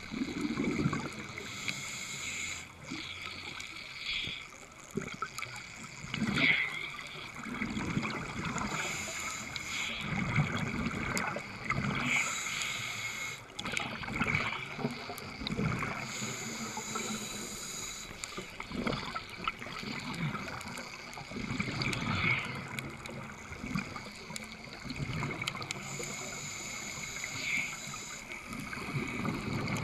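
Scuba diver breathing through a regulator. Each inhalation is a hiss, and between them come bubbling, gurgling exhalations, in a slow cycle every few seconds.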